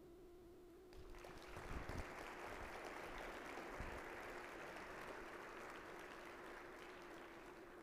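Audience applauding at the end of a lecture, starting about a second in and slowly dying away.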